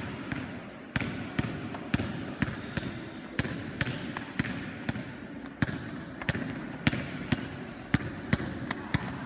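A basketball being dribbled on a wooden sports-hall floor while the player moves through cones, bouncing about twice a second with a short echo after each bounce.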